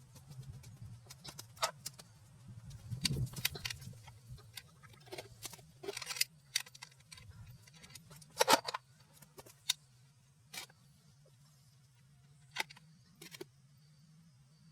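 Scattered clicks and clanks of hand tools being handled at irregular moments, the loudest knock about eight and a half seconds in, over a steady low hum.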